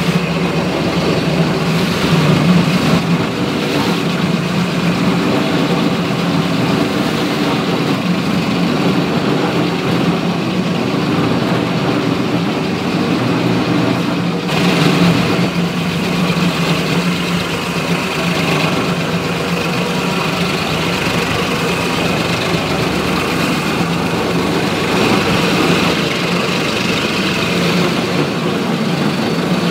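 Concrete Genie floor grinder running steadily, its grinding head working across a concrete floor to strip glue and mastic; a continuous low machine drone with a slight change in tone about halfway through.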